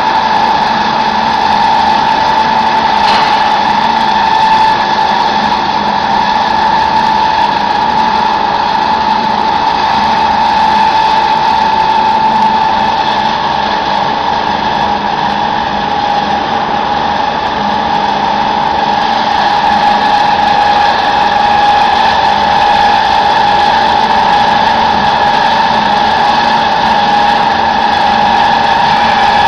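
Poultry feed pellet mill running steadily, its motor and pressing die giving a constant machine whine over a noisy hum.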